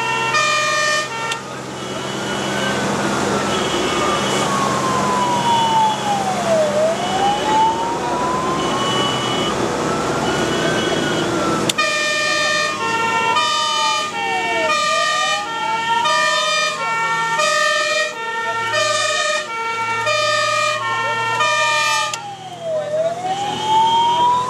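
Fire engine's siren wailing, sweeping slowly up and down about every four seconds, heard from inside the cab of a Magirus-Deutz 192D11 fire truck on an emergency run. Briefly at the start, and again for about ten seconds from halfway through, a multi-tone horn sounds over it in quick alternating notes, with the truck's engine running underneath.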